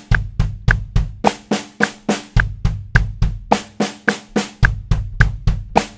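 Drum kit playing an even sixteenth-note exercise: four strokes on a chrome Ludwig Supraphonic snare answered by four strokes on the bass drum with a double pedal. The hands-then-feet groups alternate steadily, each group of four lasting about a second.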